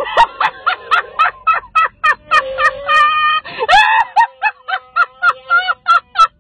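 A woman laughing hysterically in rapid, high-pitched bursts while the electronic Chewbacca mask she wears plays Wookiee growls each time her jaw moves, so the laughter comes out mixed with Chewbacca roars.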